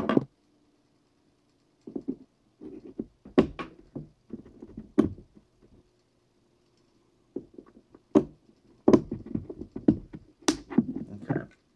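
Small metal clicks, taps and scrapes of a Glock pistol slide being handled as its slide cover plate is pushed back onto the rear of the slide over the newly fitted firing pin. Several sharp clicks come in irregular clusters, with two short quiet pauses.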